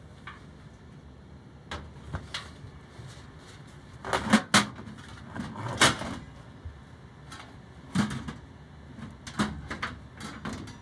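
Sheet-metal furnace blower housing being slid back into the furnace cabinet: a series of metal clunks and scrapes as it is pushed in place. The loudest knocks come about four to six seconds in, with more around eight seconds and near the end.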